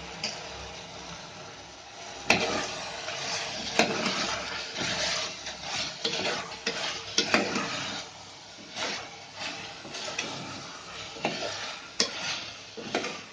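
A spoon stirring chicken and masala in a pressure cooker pot, scraping and clinking against the metal with a few sharp knocks, while the mixture sizzles in the hot oil.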